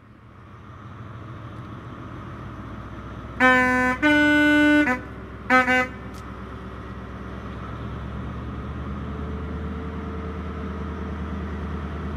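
HST Class 43 diesel power car approaching with its engine rumble building steadily, and its two-tone horn sounding a low note then a longer high note, followed by a short toot on the low note.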